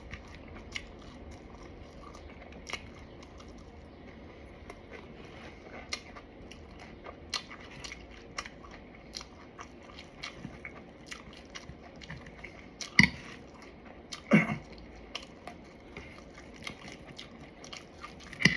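A person chewing and crunching fried food close to the microphone, with a string of short crisp crunches. About two-thirds of the way through come a couple of louder knocks.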